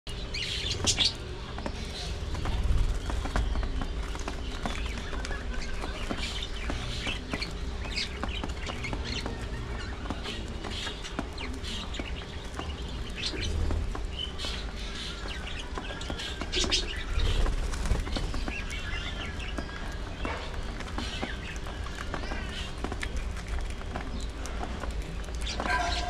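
Budgerigars chirping while they eat seed from a tray, with many small clicks of seeds being husked. A low rumble swells a few times, loudest near the start and about seventeen seconds in.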